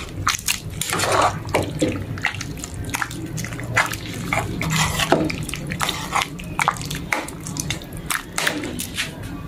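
A metal ladle stirring a pot of saucy pork stew: irregular sloshing and dripping of the broth, with light clinks of the ladle against the pot.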